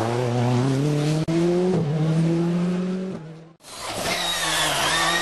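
Rally car engine accelerating hard, its pitch climbing, with two quick gear changes about one and two seconds in. The sound fades out briefly about three and a half seconds in, and then a rally car engine is heard again at high revs.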